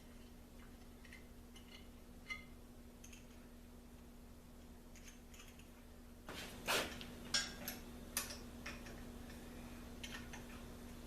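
Faint scattered clicks, then several louder sharp metallic clinks and clatters about six seconds in, typical of small metal parts being handled and set down, over a steady low hum.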